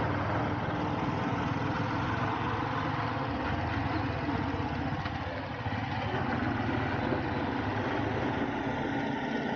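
Royal Enfield Bullet's single-cylinder engine running steadily as the motorcycle is ridden along.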